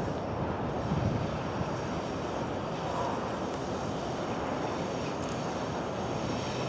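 Long freight train of ore hopper wagons rolling past at a distance, a steady rumble of wheels on rails with a faint high ringing above it.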